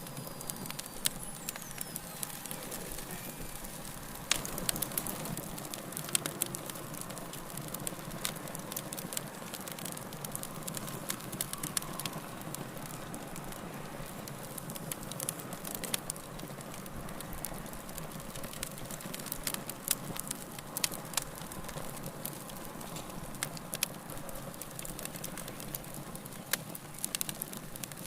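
Wood fire burning in a fireplace: a steady low hiss and rustle with frequent irregular sharp crackles and pops.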